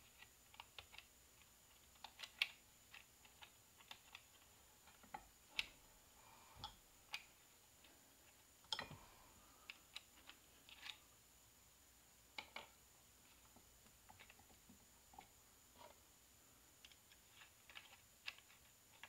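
Light, irregular metal clicks and taps as the clutch return spring is fitted and seated in an NP246 transfer case clutch pack.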